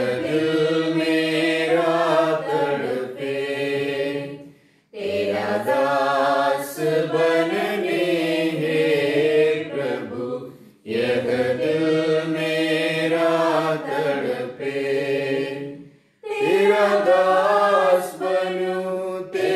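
A devotional hymn sung in Hindi, in long phrases of about five seconds with short pauses for breath between them.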